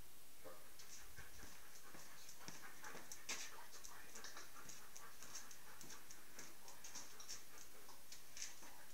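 A Belgian Malinois panting faintly as it moves about on a concrete floor, with many irregular light clicks and scuffs.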